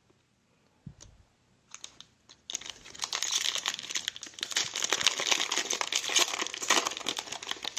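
A few light clicks, then from about two and a half seconds in, continuous crackling crinkle of a foil Panini Contenders trading-card pack wrapper being torn open and handled.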